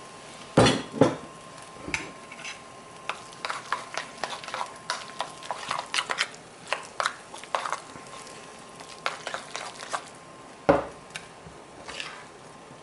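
Metal spoon clinking and scraping against a stainless steel bowl of ricotta mixture, in a run of small irregular clicks. A few louder knocks of bowls handled on the countertop come about half a second in and again near the end.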